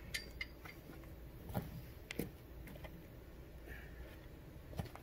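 Low, steady background noise with a few faint, short clicks and knocks, three of them spread through.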